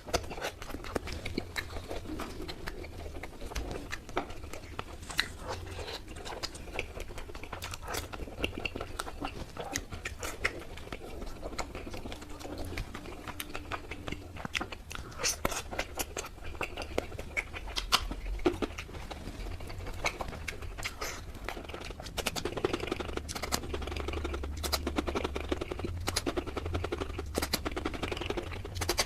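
A person eating tandoori chicken: chewing and biting, with many small irregular wet clicks and smacks.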